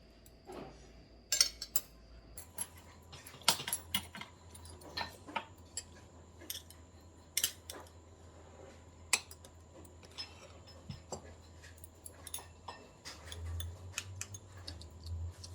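Eating at a table: irregular sharp clicks and taps of utensils against dishes as sushi is picked up and eaten, over a low hum.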